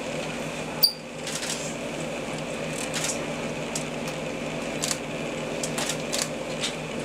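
Steady low hum from the boat's idling engine, with scattered soft clicks and rustles and one sharp pop about a second in.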